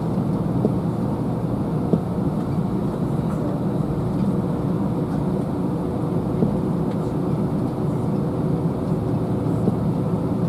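Jet airliner cabin noise while taxiing: a steady engine and air hum heard from inside the cabin, with a faint steady tone and a few light knocks and rattles.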